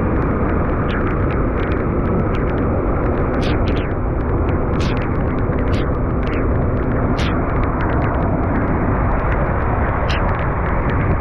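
Rain falling, with drops ticking sharply close to the microphone over a steady low rumble.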